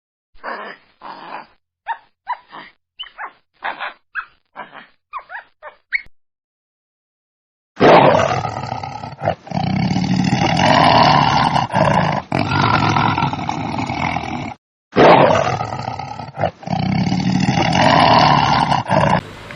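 Wild animal calls: about a dozen short calls in quick succession, then after a pause two long, loud calls separated by a brief break.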